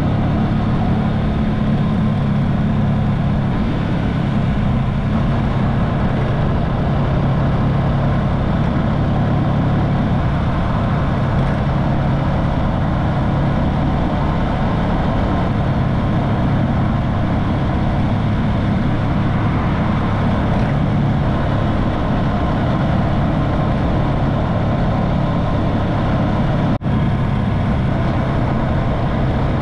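Small motorcycle's engine running steadily while riding, with an even rush of road noise; the sound cuts out for an instant about 27 seconds in.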